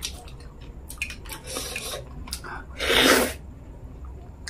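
Close-miked mouth sounds of a person eating wheat dhido and fish head curry by hand: wet chewing with small clicks and lip smacks, and one loud slurping rush of about half a second about three seconds in.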